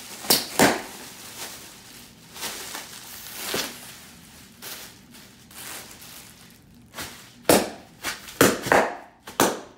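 Cardboard shipping box and its packing material being handled and pulled open: irregular rustling and crinkling with sharp crackles, several loud ones bunched together near the end.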